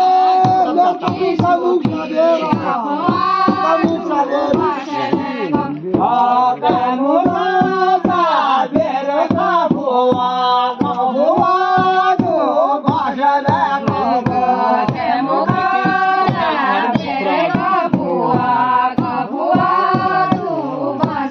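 Devotional folk singing: voices chanting a slow, wavering, repeating melody over a steady drumbeat.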